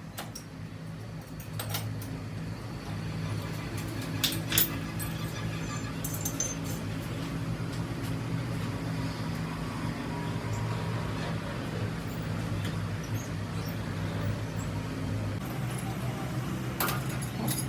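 A motor or engine running steadily at an even speed, giving a low hum, with a few sharp clicks: about a second and a half in, twice around four seconds in, and near the end.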